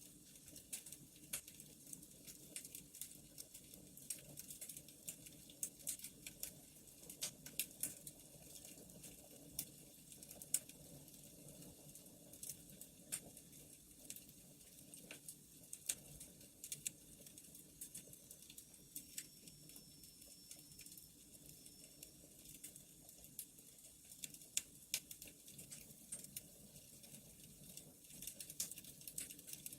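Faint wood fire crackling: irregular sharp pops and snaps over a low steady hum.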